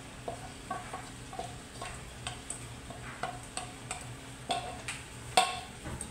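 Wooden spoon scraping and knocking against a glass bowl as orange lentils are pushed out of it into a stainless steel pot, with short knocks a few times a second and the loudest knock about five seconds in.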